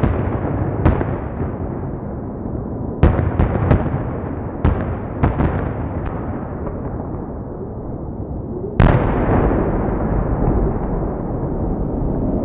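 Aerial fireworks shells bursting in a display: a string of sharp bangs with rumbling echo between them. Several come in a quick cluster about three to four seconds in, and the loudest bang comes about nine seconds in.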